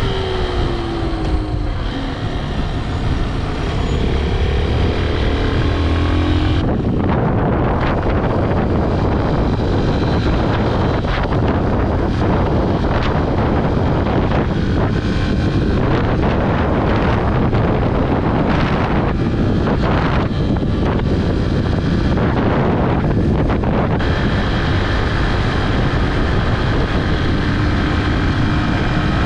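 Honda XR125L single-cylinder motorcycle engine running during a ride, heard through a GoPro's microphone, its note falling in the first few seconds. From about a quarter of the way in, heavy wind buffeting on the microphone swamps the engine, and the engine note comes through clearly again near the end.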